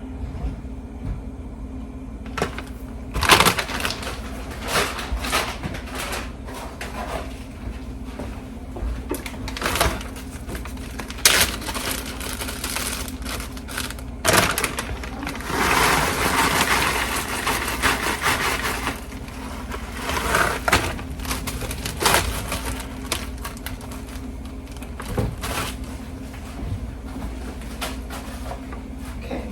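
Handling noise from packing snacks into a lunch: irregular clicks and knocks of containers and packaging being set down and handled, with a few seconds of crinkling packaging about halfway through.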